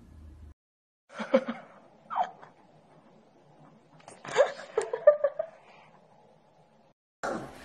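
A person laughing in short bursts, about three bouts with pauses between them, over a faint steady hum.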